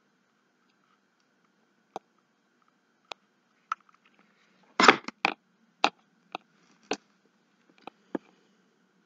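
Light clicks and taps of craft work on a cutting mat as a hot glue gun is used and a glued card is handled. A louder clatter about five seconds in fits the glue gun being put down.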